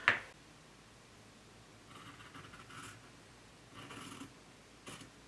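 Fabric scissors cutting through cotton gingham in a few faint, short snips.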